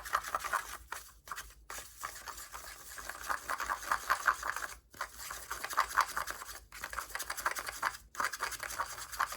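A stir stick scraping quickly round a cup of dry gold foil flakes, in rapid scratchy strokes with brief breaks every second or two, stirring the flakes dry to break them down.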